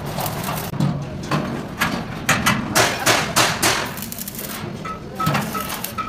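Hammer blows and clanks on steel parts of a thresher under construction: a run of sharp, irregular strikes, densest through the first few seconds, with one more about five seconds in.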